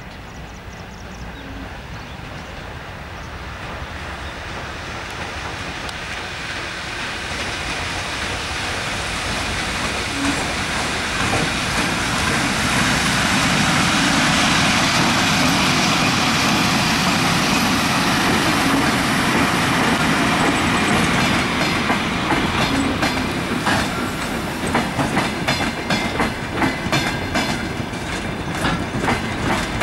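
EP1M electric locomotive and its passenger carriages approaching and passing, the running noise growing louder through the first half and then holding steady. In the last several seconds the carriage wheels click rapidly and rhythmically over the rail joints.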